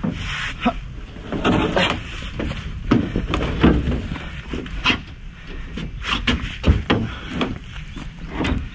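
Heavy wooden beams knocking and scraping against each other and the truck bed as they are slid up onto a small pickup, a run of irregular thuds and knocks.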